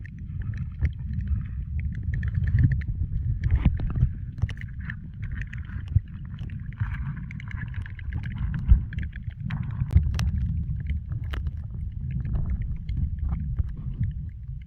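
Stream water heard as a muffled, steady low rumble, with scattered clicks and knocks over it.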